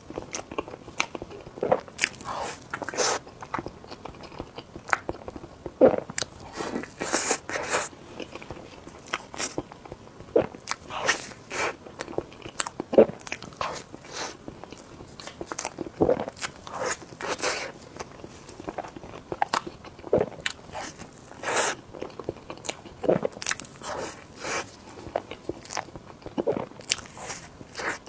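A person eating close to the microphone: irregular bites and chewing with many short, crisp mouth clicks and smacks.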